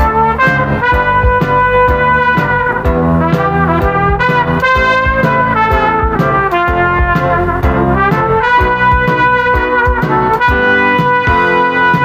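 Instrumental interlude music from the album's orchestra: brass carries held melody notes over a steady drum beat.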